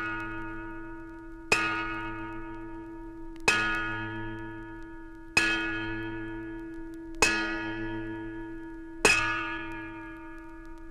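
A bell tolling slowly, struck five times about two seconds apart, each stroke ringing on and fading into the next.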